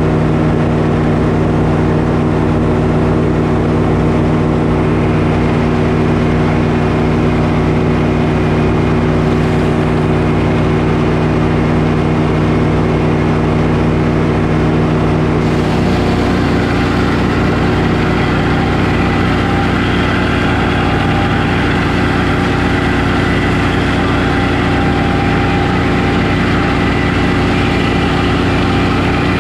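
Belt-driven Frick circular sawmill running steadily, its large blade spinning. About halfway through, the blade enters a poplar log and a rougher, higher cutting noise joins the machine's steady tone, lasting to the end.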